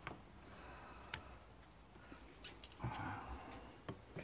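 Locking pliers (mole grips) clicking and scraping against metal as they try to grip a snapped-off bolt stub broken off flush in a motorcycle cylinder head. A few sharp, faint clicks, with a short scrape about three seconds in.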